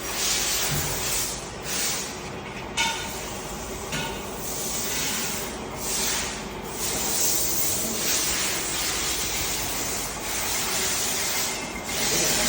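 Repeated surges of pressurized hiss, each lasting about a second, with a few light metallic clinks among them.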